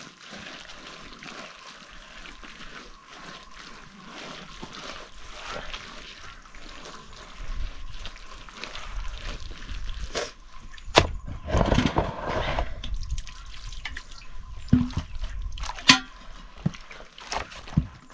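A wet earthen floor being smeared and patted by hand with mud plaster, a busy run of small wet scrapes and taps, with a few sharper knocks in the second half.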